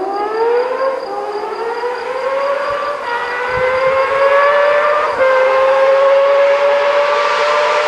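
Honda CBX 1000's inline six-cylinder engine accelerating hard: a high wail rising in pitch, dropping back briefly at each upshift (three shifts, about two seconds apart), and growing louder.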